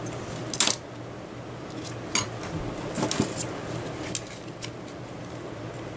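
Gloved hands handling a small plastic 3D printer cooling fan, giving a series of sharp clicks and taps, the loudest about half a second in and a cluster around three seconds, over a steady low hum.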